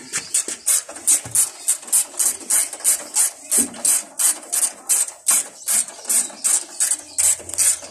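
Hand socket ratchet clicking in quick, even strokes, about four a second, as it turns a bolt on the car's headlight mounting.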